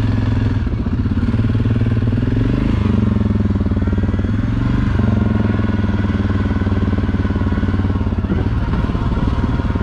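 ATV engine running as the quad rides along a dirt forest trail. The engine note shifts a couple of times with the throttle.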